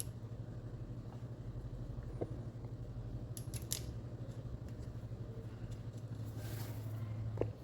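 A few light metallic clicks from small engine parts being handled and fitted against the engine case, over a steady low hum that cuts off suddenly near the end.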